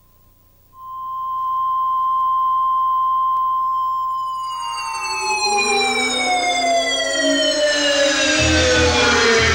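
A steady reference test tone, the kind laid on tape under colour bars, starts about a second in and holds for several seconds. Then a cluster of electronic tones glides slowly downward, and a low pulsing beat comes in near the end as the opening music of a TV broadcast begins.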